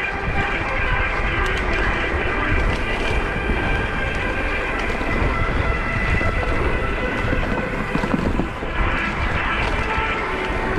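Wind buffeting the microphone as a mountain bike rolls over dirt, with tyre rumble and a steady faint buzzing whine mixed in, and a short dip about eight seconds in.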